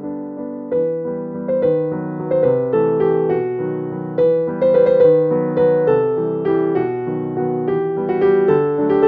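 Background piano music: a melody over held chords, with a new note about every half second.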